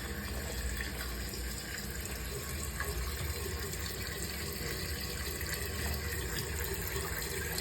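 Toilet tank refilling through a newly installed flush-mount fill valve: a steady rush of water into the tank.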